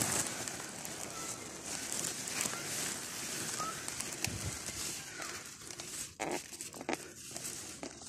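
Okra plants rustling as a hand grips and pulls their stalks and leaves, with a few sharp snaps in the second half over a steady high hiss.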